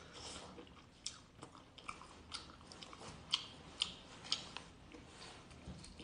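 Close mouth sounds of a person biting and chewing braised octopus: a string of sharp wet smacks and clicks, about two a second, loudest a little past the middle.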